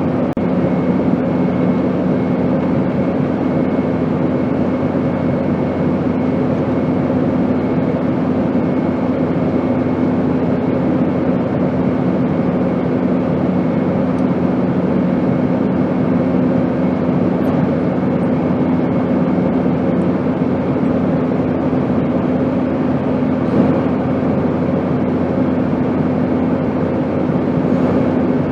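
Airplane noise: a steady, unbroken drone of engines and rushing air, with a few steady hums running through it.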